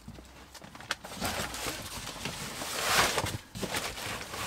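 A large cardboard box being carried and set down: scattered knocks and scuffs of the cardboard, with a swell of rustling about three seconds in.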